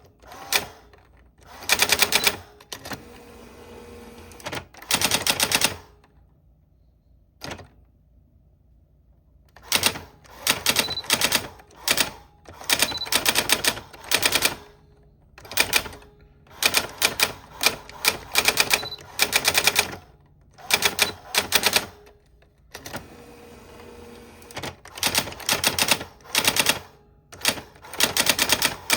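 Old typewriter being typed on: bursts of rapid keystrokes broken by short pauses, with one longer pause roughly six to ten seconds in.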